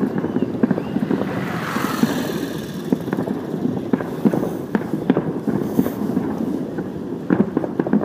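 Fireworks display heard from several miles away: a rapid, uneven stream of dull booms and pops, with a hissing rush about two seconds in.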